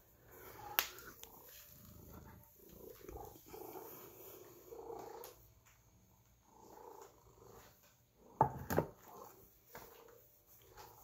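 A domestic cat purring in soft, repeating swells. There is a sharp click about a second in and two brief, louder sounds about eight and a half seconds in.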